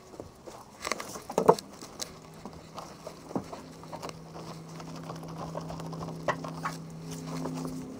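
Soapy wash mitt scrubbing and squelching over a wet painted car hood, with irregular wet pats and a sharp knock about a second and a half in. A steady low hum comes in about halfway through and grows louder.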